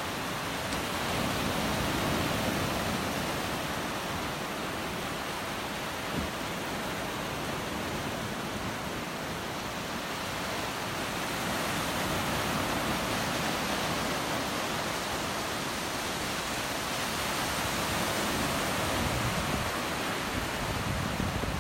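Surf on a sandy beach: waves breaking and washing ashore as a steady rushing noise, swelling in slow surges every several seconds.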